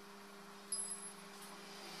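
A single light metallic clink with a short ring, about a second in, as a small metal part knocks against the white steel frame of a mesh shelving unit being assembled. A faint steady low hum runs underneath.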